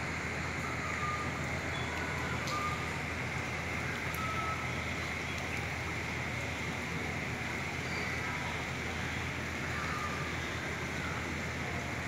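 Steady rushing background noise with a low hum, with a few faint, short, high tones scattered through it.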